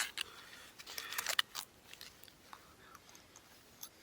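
Soft crinkling, rustling and clicking of a cold MRE foil pouch being squeezed and handled, with a cluster of rustles about a second in and a few faint ticks after.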